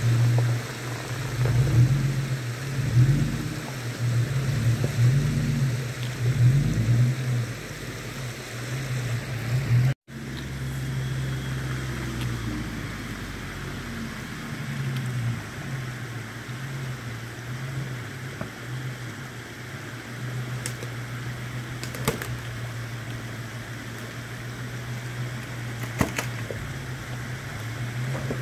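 Toyota FJ Cruiser's V6 engine crawling through a rocky creek crossing. It revs unevenly for the first ten seconds, and after a brief dropout it runs steadier and lower, over the hiss of flowing creek water, with a couple of sharp clicks near the end.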